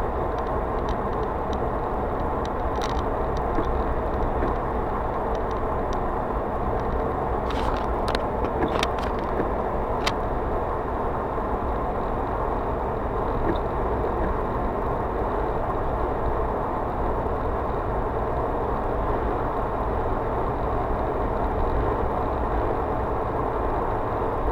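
Steady road and engine noise of a car cruising on asphalt, heard from inside the cabin. A few light clicks come about a third of the way in.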